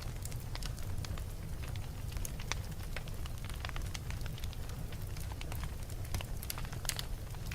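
Wood fire burning in a fireplace: irregular crackles and pops over a steady low rumble of the flames.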